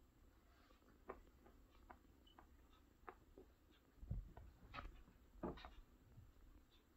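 Faint scuffling of two domestic cats play-wrestling on an upholstered armchair: scattered soft scratches and taps of paws and claws on fabric, with a few soft thumps and louder scuffs in the second half.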